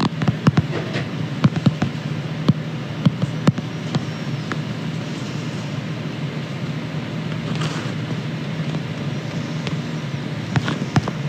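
A steady low hum with scattered sharp clicks and crackles: a phone's microphone being handled and rubbing against bedding.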